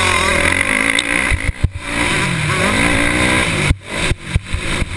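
Motocross bike engine racing under throttle, heard from an onboard camera; its note falls and then climbs again a couple of seconds in, and near the end the sound cuts out and back several times in quick succession.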